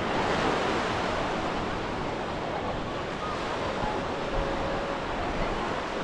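Ocean surf breaking and washing up on a sandy beach: a steady, even rushing noise with no distinct breaks.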